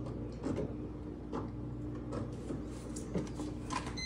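MJ-BST automatic mahjong table's shuffling motor running with a steady hum while the tiles clack irregularly inside as the machine counts and stacks them. A short electronic beep sounds at the very end.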